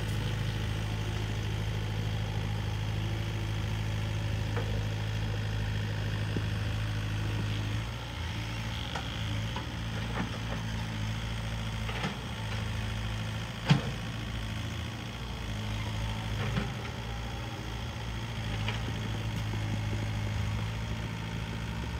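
Hitachi Zaxis mini excavator's diesel engine running steadily, its note easing slightly about a third of the way in. A few sharp knocks, the loudest just past the middle.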